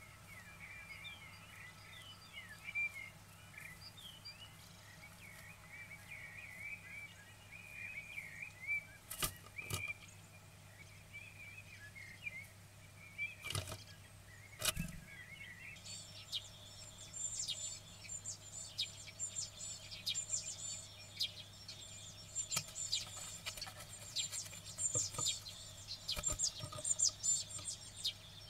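Faint songbird song and chirping, heard through a nest box microphone, with a few sharp knocks as a great tit moves about inside the box and leaves through the entrance hole. About halfway through, the song changes to higher, busier twittering.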